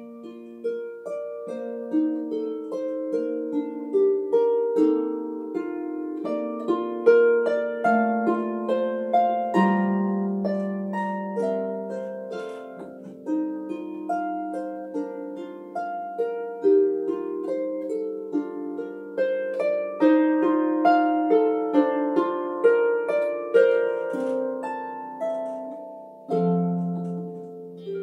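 Solo harp playing a gentle cradle song: a plucked melody of ringing, decaying notes over lower bass notes, the piece beginning with its first notes right at the start.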